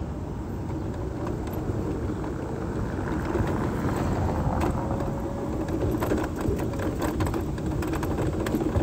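Wheelchair rolling along the pavement, a steady rumble with a faint hum, picked up by a phone hanging close at the rider's neck; scattered clicks and rattles join in the second half.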